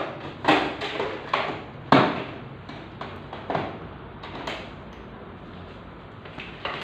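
Handling noises from unboxing a printer: a run of short scrapes and knocks, the loudest about two seconds in, fewer and fainter in the second half.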